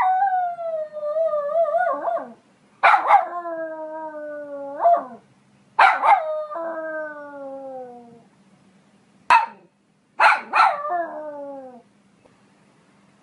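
Poodle barking in drawn-out howls: each call starts abruptly and is held for one to two seconds while sliding slowly down in pitch. There are four such howls, with a single short bark between the third and fourth.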